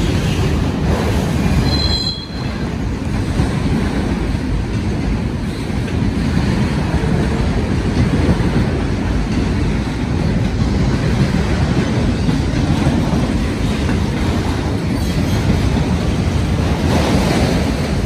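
Long freight train of autorack cars rolling past at close range: a steady rumble and rattle of steel wheels on the rails, with a brief high wheel squeal about two seconds in.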